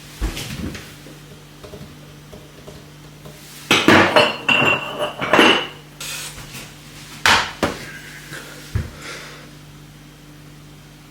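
Crockery and cutlery clattering and clinking on a kitchen counter as coffee is made. A cluster of knocks and clinks comes a few seconds in, then a few sharp single clicks, over a steady low hum.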